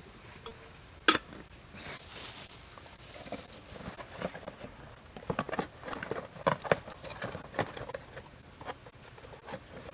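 Handling of a stainless steel cook pot and water purifier bottle. A sharp click about a second in, then a run of light taps and clicks.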